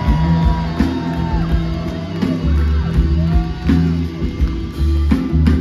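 Live blues-rock band playing loud: electric guitars with held, bending notes over bass and drums, heard from within the audience.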